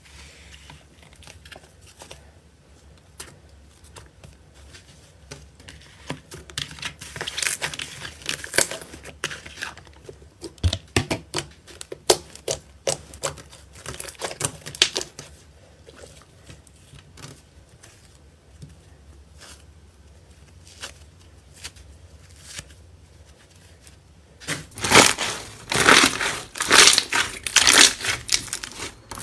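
Slime being squeezed, poked and stretched by hand close to the microphone, giving quick sticky clicks and crackles. They come in scattered runs, and the loudest and densest starts a few seconds before the end.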